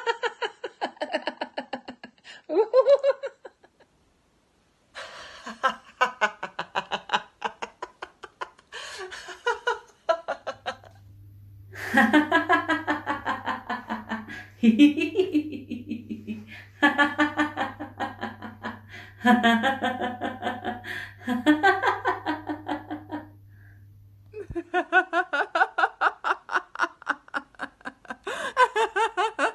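Several women laughing heartily one after another in laughter yoga's 'giggle phone' exercise: rapid ha-ha pulses in runs with short breaks between them, and a brief silence about four seconds in. A steady low hum sits under the laughter from about ten seconds in until about twenty-five seconds in.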